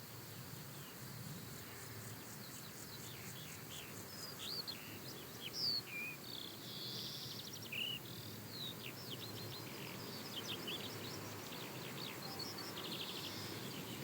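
Outdoor nature ambience: songbirds chirping with short sliding notes and quick trills over a steady low background noise, the chirps starting about four seconds in.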